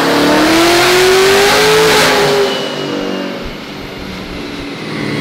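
Twin-turbo C8 Corvette V8 at full throttle on a chassis dyno, revs climbing steadily to the top of the pull on about 22 psi of boost. About two and a half seconds in the throttle closes, and the engine and rollers wind down. This is a pull of over 1,200 horsepower.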